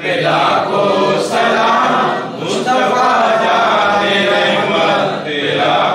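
Men chanting an Islamic devotional salam together in a continuous melodic recitation, with no breaks.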